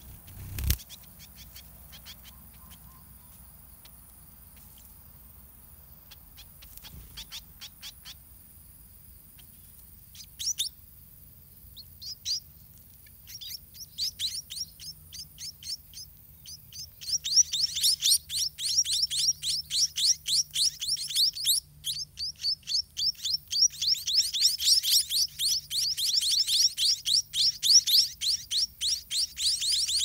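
White-rumped munia chicks begging: scattered high chirps that turn into a fast, continuous run of chirps about halfway through as a parent feeds them. A single thump sounds just under a second in.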